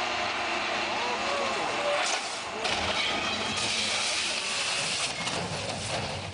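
Steady vehicle noise, an even rushing hiss, with faint voices in the background; it fades out near the end.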